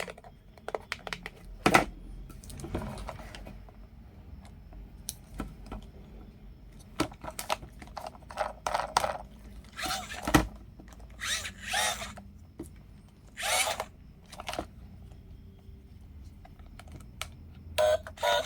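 Small electric motor of a remote-control toy stunt car whirring in short bursts, among scattered clicks and knocks of plastic being handled.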